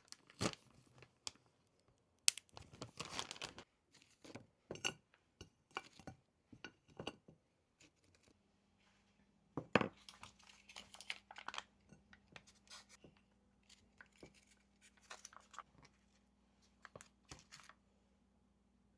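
Plastic packaging rustling, crinkling and tearing during kitchen food handling, with light clicks and knocks. A low steady hum starts about eight seconds in.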